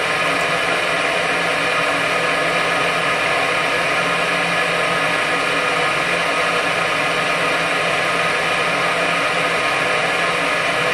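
Gas furnace's draft inducer fan motor running steadily, a constant whir with a steady hum of tones under it, as the furnace purges before lighting the pilot.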